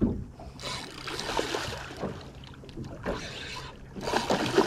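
Water splashing beside a small boat as a hooked black drum fights at the surface, in irregular surges with the loudest splash near the end.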